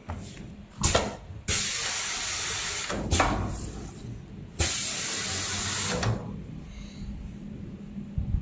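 Pneumatic cardboard groove-cutting machine working: a knock, then two bursts of compressed-air hiss of about a second and a half each, with another knock between them. A low steady hum runs underneath.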